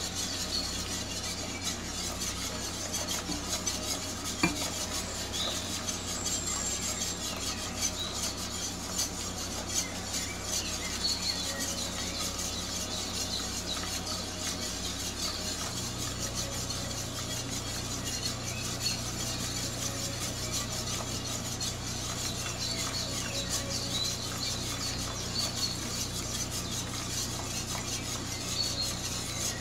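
Wire whisk stirring steadily in a stainless steel saucepan, its wires scraping and ticking against the pan as milk is whisked into a flour and sugar mixture to cook a pudding base.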